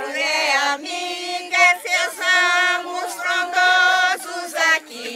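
A group of people singing a song together, women's and men's voices mixed, holding long notes.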